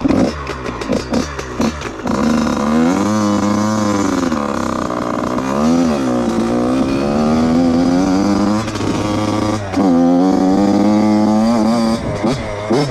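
Yamaha dirt bike engine catching suddenly and running unevenly, then revved up and down over and over, its pitch rising and falling. Near the end it is pulling away down the trail.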